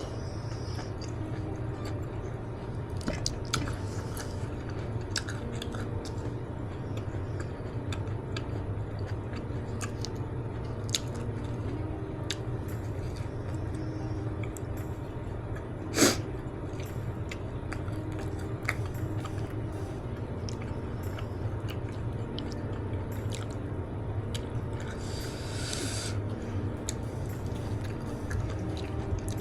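Close-miked chewing and wet mouth sounds of a person eating kimchi jjigae, with many small clicks over a steady low hum. There is one sharp, louder click about halfway through and a brief hiss near the end.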